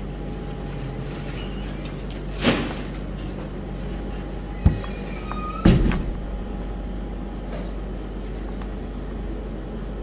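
A few brief knocks and clunks, about two and a half, four and a half and five and a half seconds in, over a steady room hum.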